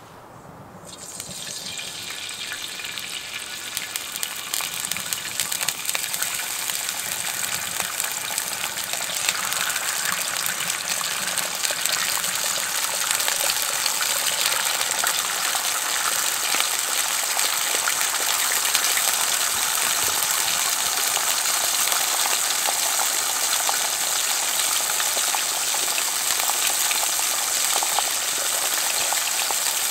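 Food sizzling and spitting in a hot frying pan. It starts about a second in and grows louder over the next ten seconds or so, then holds steady.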